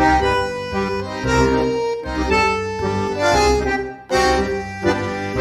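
Background music: a tune of held, changing notes over a pulsing bass line, with a brief break about four seconds in.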